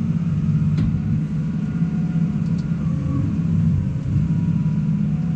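New Holland T7 tractor's diesel engine running steadily under load while pulling a round baler through straw, with a low drone and one brief click about a second in.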